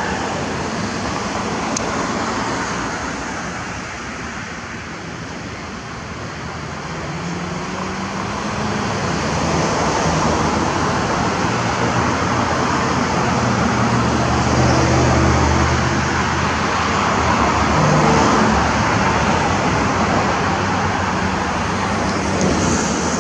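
Road traffic noise, with a motor vehicle's low engine hum that grows louder about a third of the way in and stays loud for several seconds.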